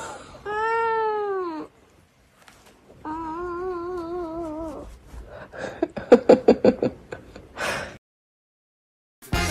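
Domestic cat yowling in long drawn-out calls: first one that rises and falls, then a longer one with a wavering pitch. A quick stuttering run of short sounds follows, and the audio cuts off near the end.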